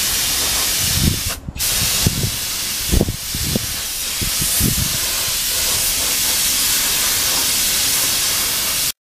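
Compressed-air paint spray gun spraying with a steady hiss, which drops out briefly about a second and a half in before resuming, with a few low thumps. The hiss cuts off suddenly near the end.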